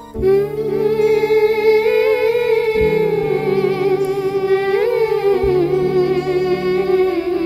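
Background music: a wordless vocal line held and wavering with vibrato over low sustained chords, which change twice.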